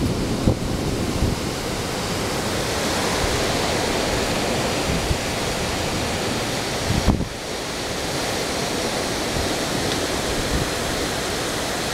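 Heavy, wind-driven rain pouring down steadily during a severe thunderstorm, with gusting wind. There is a brief low bump about seven seconds in.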